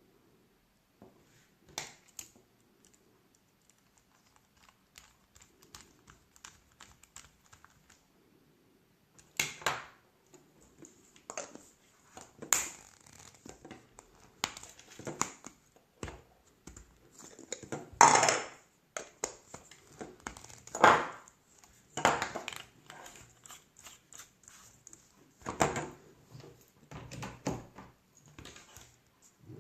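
Hands handling small hard parts: irregular clicks, taps and crinkling, sparse at first, then coming thick and fast from about nine seconds in, the loudest knocks about eighteen and twenty-one seconds in.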